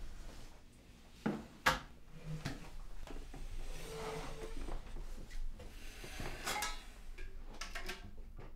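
Household handling sounds: dishes and cutlery clinking, with two sharp knocks about a second and a half in and a run of clatter near the end.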